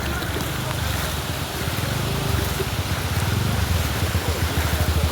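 A motor running with a low, fast-pulsing rumble over a steady rushing noise, getting somewhat louder about halfway through.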